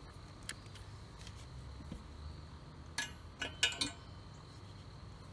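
Quiet outdoor background with one click about half a second in, then a quick run of sharp metallic clinks about three to four seconds in, as a long lighter is handled at a steel-tube rocket stove.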